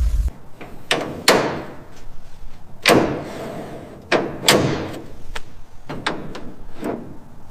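Several sharp knocks at irregular intervals, each with a short ringing tail. A steady hiss cuts off just after the start.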